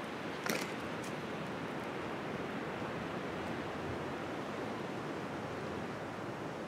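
Steady outdoor wind hiss on the microphone, with one short click about half a second in.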